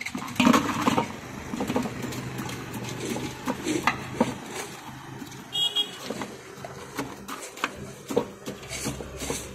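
Busy street ambience: scattered clinks and knocks over a low steady hum, with the loudest clatter about half a second in and a short high-pitched beep about six seconds in.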